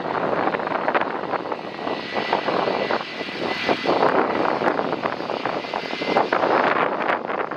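Jet airliner on landing approach passing by, its engines giving a steady rushing noise with a thin high whine, under heavy wind buffeting on the microphone.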